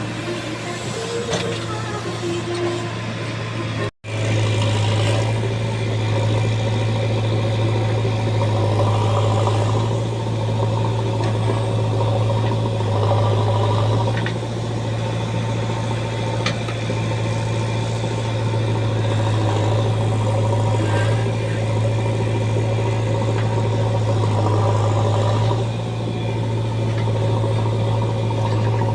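Heavy diesel engine of earthmoving machinery running steadily, with a few faint clanks. The sound cuts out for an instant about four seconds in.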